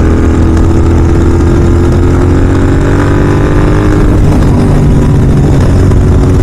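Royal Enfield Continental GT 650's parallel-twin engine running through an aftermarket Red Rooster exhaust while riding, its pitch drifting slightly lower over the first four seconds, then holding steady.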